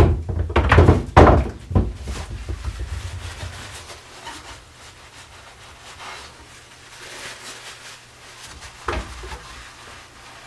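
About four heavy knocks on wood in the first two seconds, then quieter rubbing and handling of wooden parts, and one more sharp knock about nine seconds in.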